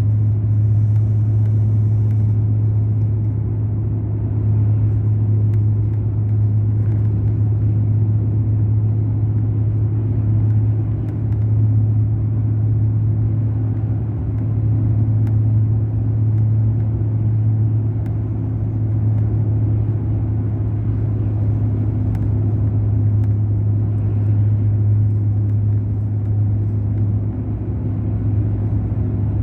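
Mercedes-Benz O500 RSD BlueTec5 coach's diesel engine running steadily, a deep, even hum that hardly changes.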